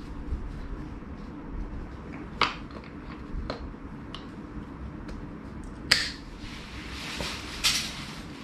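Gloved hands fitting a plastic fork guard to a suspension fork's lower leg, fastening it with cable ties: handling and rustling with four separate sharp plastic clicks, the loudest about six seconds in.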